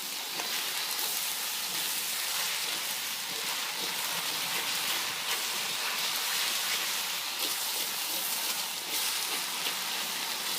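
Rice noodles and beef sizzling steadily in a hot wok as a stir-fry, an even hiss with faint crackles.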